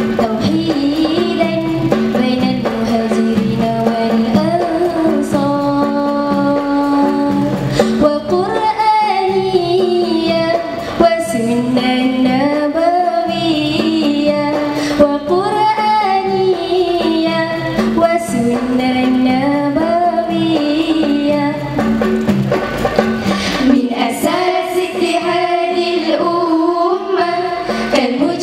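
A girls' vocal group singing an Arabic song into microphones, holding long notes in a melody that winds up and down, with a few drum strikes here and there.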